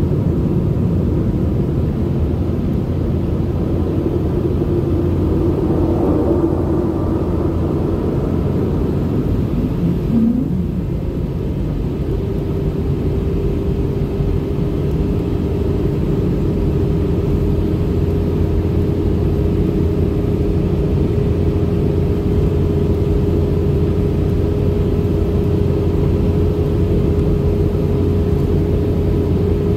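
Steady cabin rumble of a Boeing 717-200 in its climb, from its two rear-mounted Rolls-Royce BR715 turbofans and the air rushing past the fuselage. A steady hum comes in about twelve seconds in and holds.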